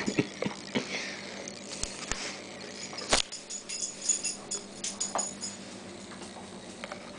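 Rhodesian ridgeback puppy moving about on a vinyl kitchen floor: scattered clicks and scuffles of its paws, with one sharp knock about three seconds in, settling down near the end.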